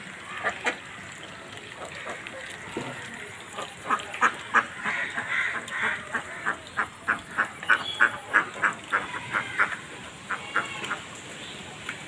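A flock of domestic ducks quacking. At first there are a few scattered quacks, then from about four seconds in a rapid run of loud quacks, about three a second, that eases off near the end.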